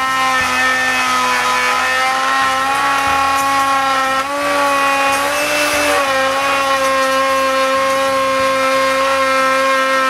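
Handheld router with a bearing-guided copying bit cutting a deep rabbet in African mahogany on the final pass. The motor gives a loud, steady whine mixed with the hiss of the cut, and its pitch rises a little for a moment around the middle.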